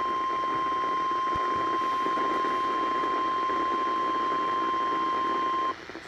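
NOAA Weather Radio warning alarm tone (the 1050 Hz attention signal) playing from a RadioShack weather radio's speaker, a single steady high beep announcing a flash flood warning. It cuts off suddenly near the end, leaving faint radio hiss.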